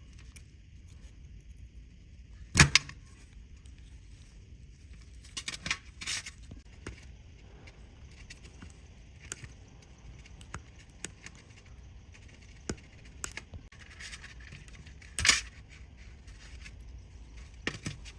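Sparse small metallic clicks and clinks of watch-repair tools and parts being handled on a workbench. A sharp knock comes about two and a half seconds in and another about fifteen seconds in.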